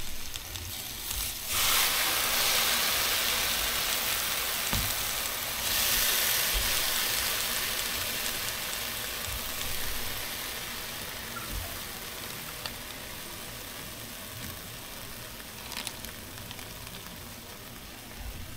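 Food frying in butter on a Blackstone 17-inch griddle: a steady sizzle that jumps louder about a second and a half in and again about six seconds in, as more goes onto the hot plate, then slowly dies down.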